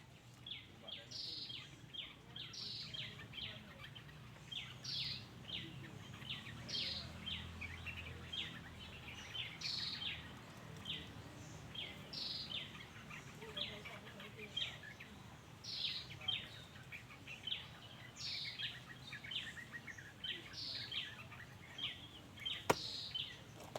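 Black-naped oriole calling: a descending call repeated about every two seconds, with quick short chirps between. A single sharp click comes near the end.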